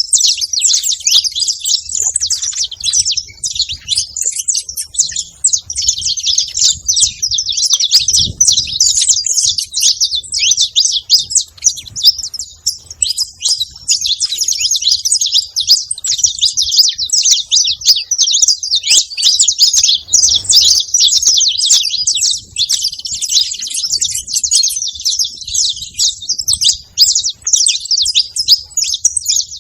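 Saffron finch chirping without pause, a fast unbroken run of high, sharp notes.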